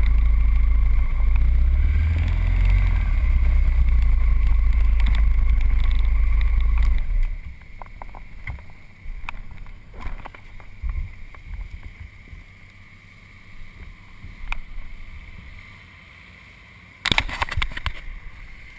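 Motorcycle engine idling with a steady low rumble, then cut off abruptly about seven seconds in. After that come a few faint knocks and clicks, and near the end a loud scraping rustle.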